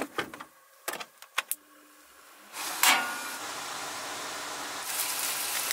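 A few sharp clicks and knocks as the camper's roof vent is worked by hand. About two and a half seconds in, a steady rushing hiss starts with a click and keeps going, a little louder near the end.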